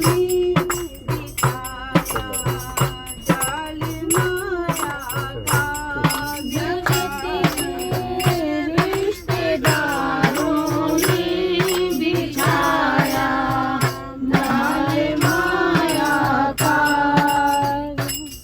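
Hindu devotional bhajan singing with jingling hand percussion keeping a steady beat.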